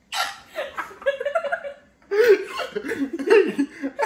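People laughing hard. It opens with a breathy burst, pauses briefly about two seconds in, then comes back louder as a run of choppy, pitched ha-ha pulses.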